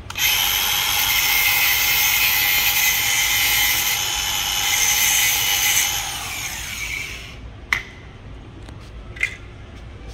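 Cordless angle grinder with a cutting disc running at full speed with a steady high whine for about six seconds, then spinning down after it is switched off. Two short sharp clicks follow near the end.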